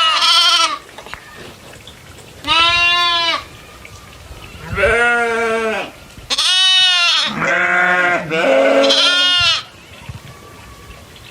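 Goats bleating: about six loud, drawn-out calls of roughly a second each with short pauses between them, some higher and some lower in pitch, as from several animals.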